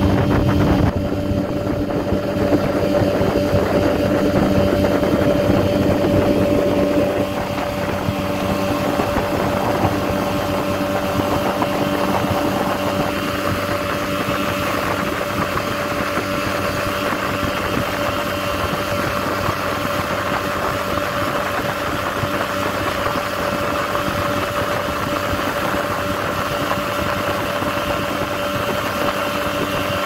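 A boat engine running steadily with an even hum. It drops a little in level about seven seconds in, then carries on.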